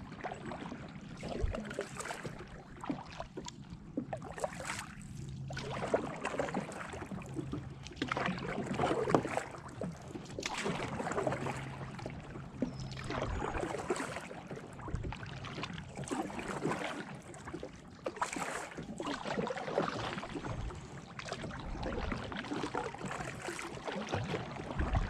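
Kayak paddle strokes dipping and splashing in the water beside a Perception Tribe 11.5 sit-on-top kayak, a stroke about every two seconds in an even rhythm.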